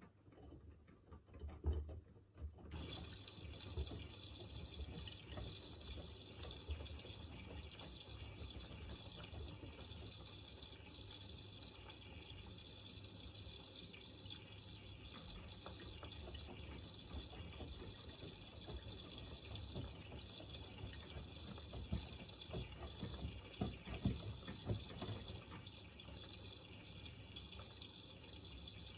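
Miele Navitronic W3985 WPS front-loading washing machine taking in water: the inlet valve opens about three seconds in, and a steady hiss of water rushing in begins, with low sloshing knocks from the drum underneath.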